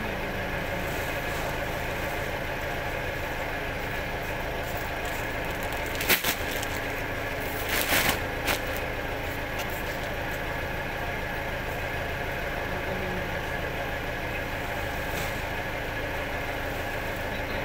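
Steady mechanical hum. A few sharp thumps and rustles come about six seconds and about eight seconds in, as a large woven sack is set on a stack and patted flat.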